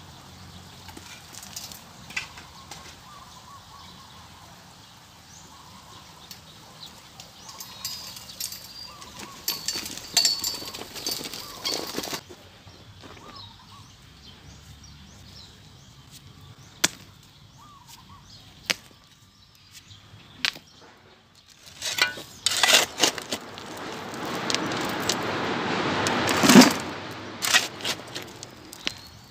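A steel shovel digging into rocky, sandy soil: the blade scrapes and crunches through gravel and stones, with stones clinking. The first half is quieter, with a few scattered clicks; in the second half come several loud scraping strokes.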